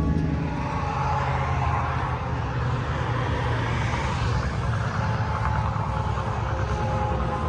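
A motor vehicle driving, with steady engine drone and road noise.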